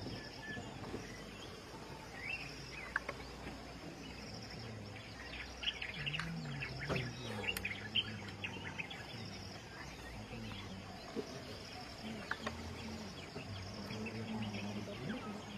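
Forest ambience: birds chirping, thickest about five to eight seconds in, over a steady pulsing insect drone, with a faint low murmur beneath.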